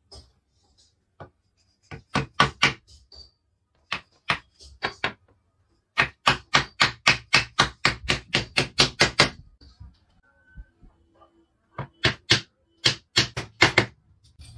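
Hammer tapping on a wooden board as it is fitted onto a harmonium's wooden case. Short groups of sharp knocks come first, then a quick run of about twenty blows, then a few more knocks near the end.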